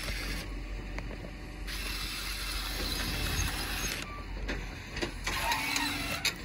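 Huina 580 RC excavator's small electric motors and gearing whirring as the arm and bucket are worked, the whirr starting and stopping in short spells.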